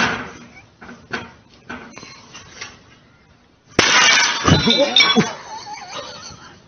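A sudden loud shattering crash, like breaking glass, about four seconds in. It lasts over a second and has a voice crying out within it. A few short knocks come before it.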